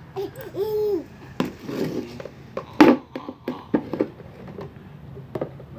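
A baby's short rising-and-falling vocal sound, followed by a scatter of sharp clicks and knocks from handling objects, the loudest about three seconds in.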